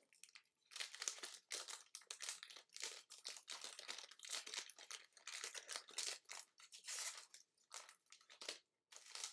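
Plastic wrapping crinkling and tearing as a sealed trading-card box is unwrapped by hand, in quick, irregular crackles.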